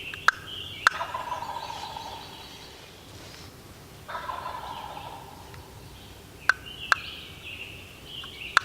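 Wild turkey gobbler gobbling twice, each gobble a rapid rattling call lasting about a second and a half, the second about three seconds after the first. Sharp ticks and higher-pitched bird calls sound between the gobbles.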